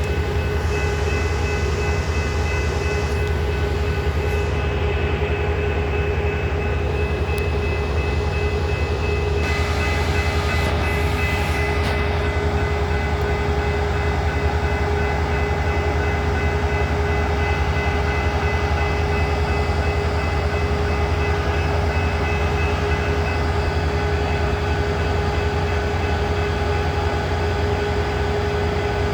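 Railway train running steadily: a continuous low rumble with several steady mechanical tones that hold unchanged throughout.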